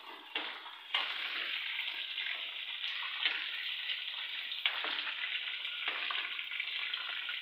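Chicken pieces sizzling in hot oil in a steel karahi, a steady frying hiss, with a few sharp clinks of a metal slotted spoon against the pan as the pieces are lifted out.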